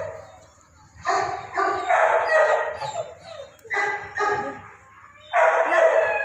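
Labrador retriever barking repeatedly, in runs of deep barks with short pauses between them; some barks are drawn out and fall in pitch.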